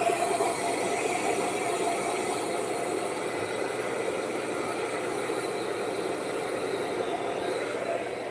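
Handheld hair dryer running steadily: a constant motor whine over a rush of blown air.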